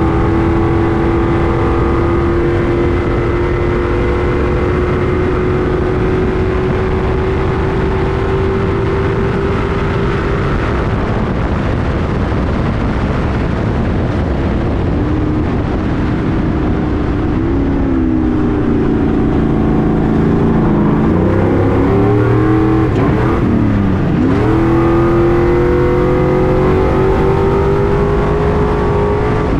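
Stadium Super Truck's V8 engine heard from inside the cab. It is held at steady high revs that creep up for about ten seconds. Past the middle the revs fall and waver with two sharp dips as it slows for a corner, then climb again as it accelerates out near the end.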